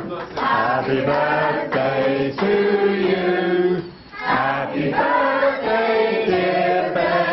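A group of people singing a song together without accompaniment, in long held notes, with a short break between lines about four seconds in.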